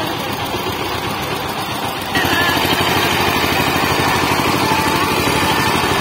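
Single-cylinder diesel engine of a two-wheel walking tractor running with a fast, even chugging. It gets louder about two seconds in and holds at the higher level.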